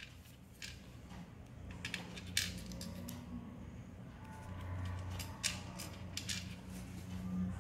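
Small plastic Mastermind code pegs clicking and rattling as they are picked out of the plastic peg tray and pressed into the holes of the plastic game board: a string of separate light clicks, some louder than others.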